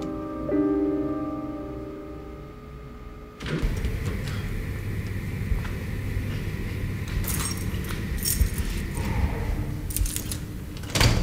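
Soft piano music fading out, then, about three and a half seconds in, keys jangling and clicking at a door lock, with bright rattles twice more toward the end.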